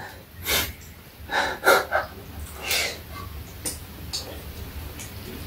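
Close-up sounds of people eating: several short, noisy breaths and sniffs in the first three seconds, then a few light clicks of utensils against a steel bowl.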